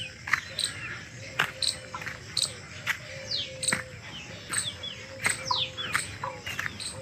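Wild birds calling in woodland: a busy mix of sharp chips and quick falling whistles at irregular intervals.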